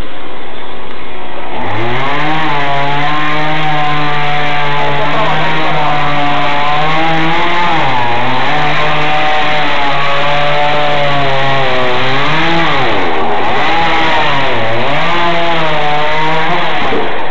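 A chainsaw revs up about a second and a half in and runs at high speed, its pitch dipping several times as the chain bites into the wood of a fallen tree being cut up.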